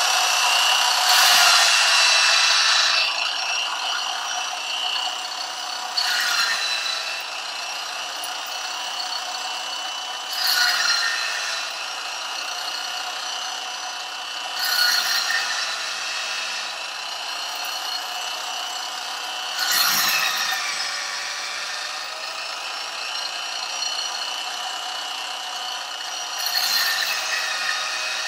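Electric drill spinning a World's Finest Trimmer case trimmer steadily. Every four to five seconds a louder burst of cutting comes as a rifle brass case is pressed in and trimmed to length, six cuts in all, the first the longest and loudest.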